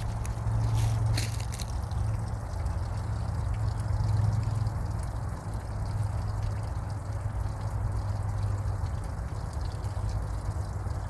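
Steady trickling of flowing water, an even rushing with no breaks.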